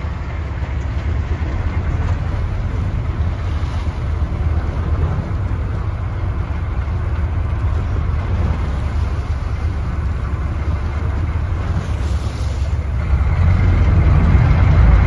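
Fishing boat under way at sea: a steady low rumble of the boat and wind buffeting the microphone, growing louder about thirteen seconds in.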